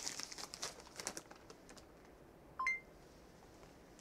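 Faint footsteps and rustling, then a short electronic beep of two quick notes, the second higher, about two and a half seconds in.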